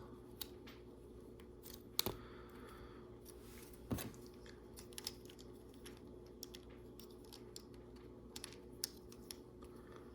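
Scattered light clicks and taps of plastic Lego Technic pieces being handled and pressed into place, with two louder knocks about two and four seconds in.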